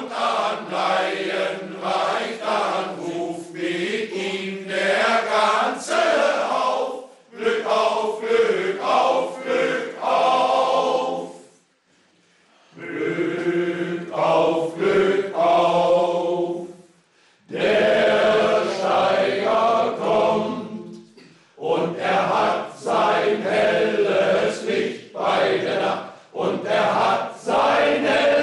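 All-male choir of former coal miners singing a traditional miners' song in rehearsal, in long phrases with short breaks between them; the longest break, about twelve seconds in, is nearly silent before the singing starts again.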